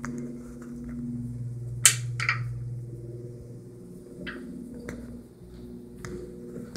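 A low hum of water in the pipes of a commercial flushometer toilet, fading out as the flush valve finishes and shuts off. A sharp click comes just before two seconds in, then another, with a few lighter clicks and taps later.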